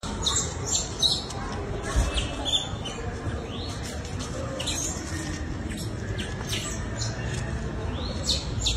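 Repeated short, high-pitched chirps and squeaks, some sliding in pitch, over a steady low rustling.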